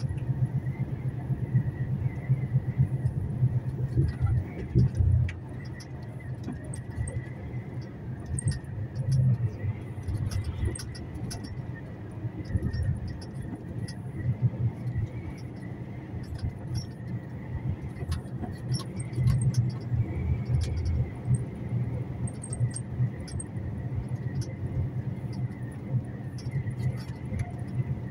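Truck cab on the move: steady low engine and road rumble that swells and eases, with a faint steady whine and many small rattles and clicks from the cab.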